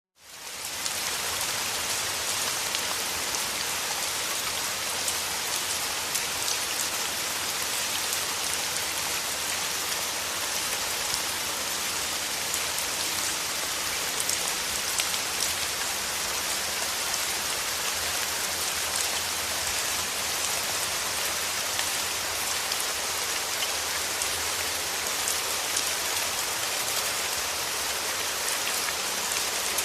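Steady rain falling, a dense even hiss of drops with fine individual taps through it, fading in from silence at the very start.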